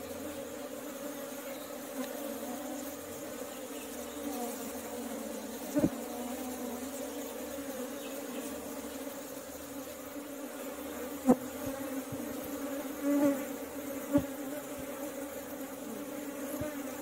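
Steady buzzing hum of a large honeybee colony clustered on its comb and at the hive entrance, with a few short sharp clicks.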